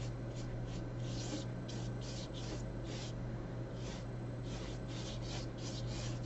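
Paintbrush strokes of thick gouache on paper: short, irregular scratchy swishes, roughly two a second, over a steady low hum.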